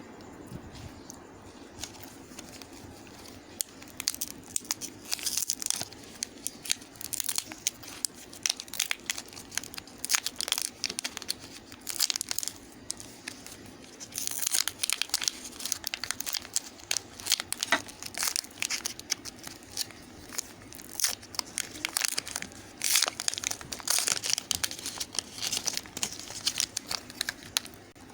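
Knife cutting into a bar of dry white soap: crisp crackling and crumbling in quick clusters of small clicks.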